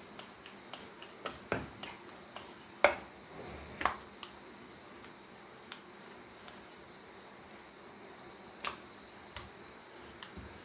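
Wooden rolling pin working luchi dough on a wooden board, giving scattered clicks and a few sharper knocks of pin against board, the loudest about three seconds in.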